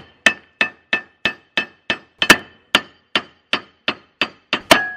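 Claw hammer striking metal in a steady rhythm of about two to three blows a second, each blow with a short metallic ring, as a crimp sleeve is hammered down onto 3/32 steel cable. The blows about two seconds in and near the end are louder than the rest.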